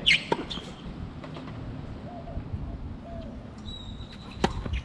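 Tennis balls struck by rackets, a sharp pop at the start followed quickly by a second, then another near the end. Faint bird calls sound in between.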